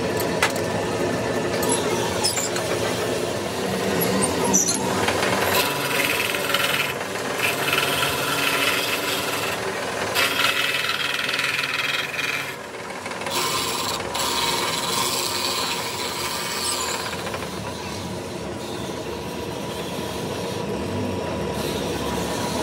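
A tool-post-mounted flap-disc grinder is grinding down the built-up weld on a pinion gear's teeth while the lathe runs, giving a steady motor hum. The rasping grinding comes and goes and is strongest in stretches through the middle.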